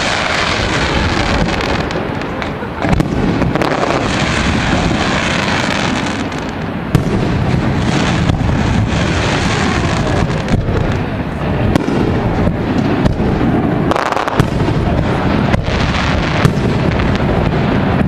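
Aerial fireworks bursting overhead: a dense, unbroken barrage of bangs and crackling, with sharper reports standing out every second or so.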